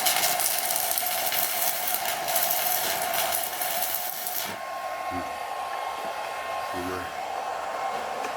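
Stick welding with a handheld inverter welding gun: the arc hisses and crackles steadily, then breaks off about four and a half seconds in, leaving a quieter steady whine from the machine.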